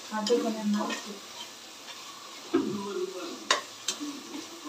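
Masala frying with a sizzle in a pressure cooker as a metal slotted spoon stirs it, scraping the pot and knocking against its sides a few times, twice in quick succession about three and a half seconds in. It is the stage where the red chilli powder is fried into the onion-tomato masala before water goes in.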